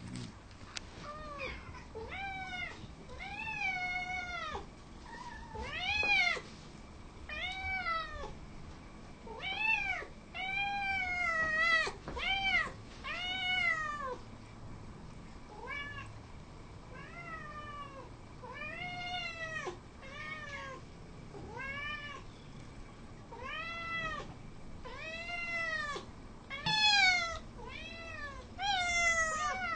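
Several domestic cats meowing over and over, a string of short calls that each rise and fall in pitch, begging for food and treats.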